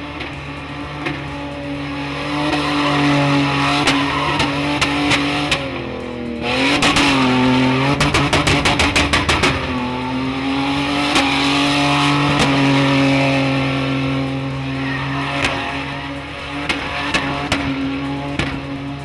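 Toyota Land Cruiser SUV drifting through a burnout, its engine held at high, steady revs while the tyres squeal. About six seconds in the revs dip and climb again, then the engine stutters rapidly, about eight pulses a second, for a second or two before settling back to steady high revs.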